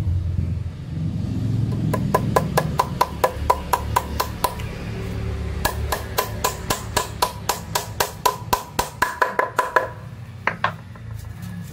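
Hammer tapping a small nail into a pine board: a quick run of light, ringing strikes at about five a second, a short pause, then a longer run that drives the nail home.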